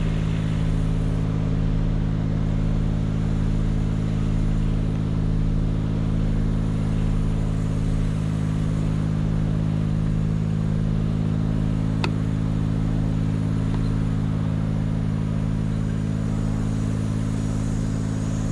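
Engine of an aerial lift running steadily with an even low hum. There is one sharp click about twelve seconds in.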